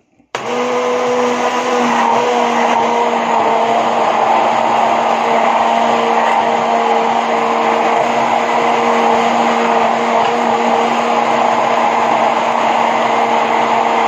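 Hand-held immersion blender switching on just after the start and running steadily in a plastic jug, with a steady motor hum, as it blends an egg-and-oil mixture into alioli.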